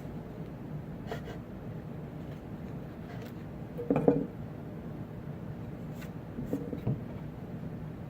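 Quiet workshop handling sounds of plywood cabinet parts being fitted together: a few light knocks and rubs over a steady low hum, with one brief louder squeak-like scrape about four seconds in.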